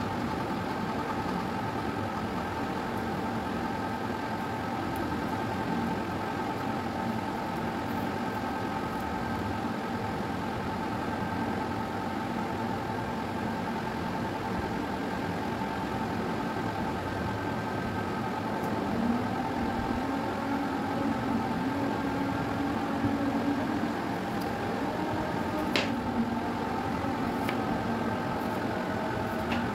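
A steady machine hum with several fixed tones, from a small motor running. Near the end come a few sharp clicks of a kitchen knife cutting fruit on a cutting board.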